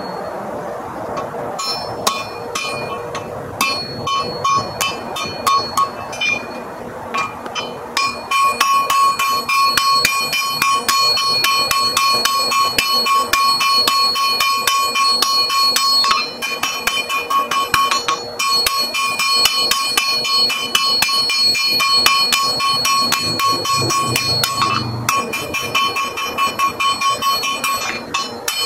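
Blacksmith's hand hammer striking a red-hot iron bar on an anvil, the anvil ringing with each blow, sped up to double speed. Scattered blows for the first several seconds, then a rapid, steady run of hammering from about eight seconds in, broken by short pauses twice.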